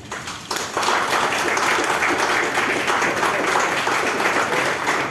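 Audience applauding, swelling in about half a second in and continuing steadily.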